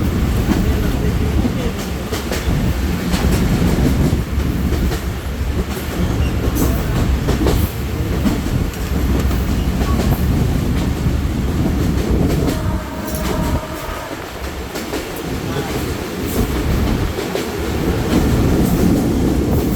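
Rupsha Express passenger train running through at speed: a loud, steady rumble with wheels clattering over rail joints. A brief high tone sounds about two-thirds of the way in.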